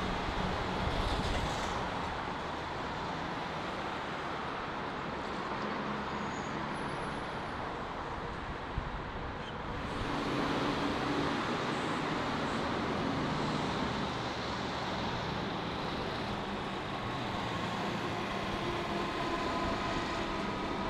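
Melbourne suburban electric multiple-unit trains running past on the line, a steady rumble of wheels on track. Partway through the sound changes as a second train takes over, and near the end a steady whine comes in above the rumble.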